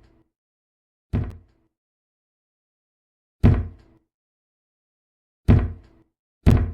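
Heavy blows struck one at a time at an uneven pace, four of them, each dying away over about half a second with a faint ringing note, as an object is smashed apart.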